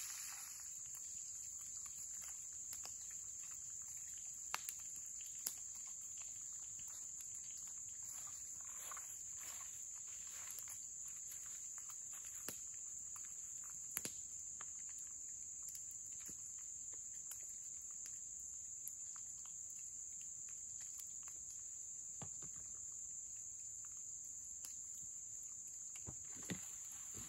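Steady high-pitched drone of insects in the surrounding woods, with a few sharp clicks now and then.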